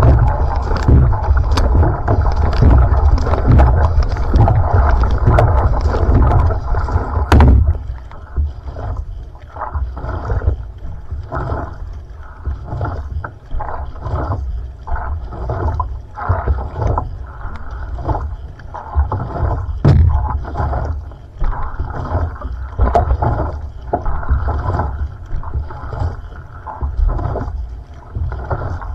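Water splashing and rushing along an outrigger canoe's hull with each paddle stroke, heard close up at the waterline. For the first seven seconds it is loud and continuous. After an abrupt change, the strokes stand out as a rhythm of about one splash a second.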